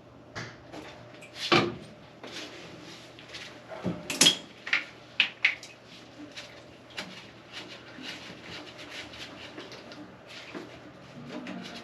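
Irregular knocks, clicks and clatter of hard objects being handled, with the loudest knocks about a second and a half and about four seconds in.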